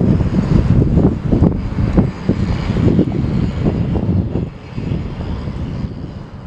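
Wind buffeting the microphone in irregular low gusts over a steady low rumble. It eases off in the last couple of seconds.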